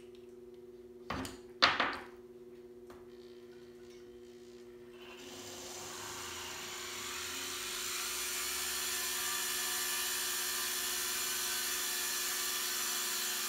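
Two sharp clicks about a second in as the flex-shaft handpiece is adjusted for a new bit, over a steady hum. From about five seconds in, a flex-shaft drill bit grinds into a pebble held in a pan of water: a grinding hiss that builds, then holds steady.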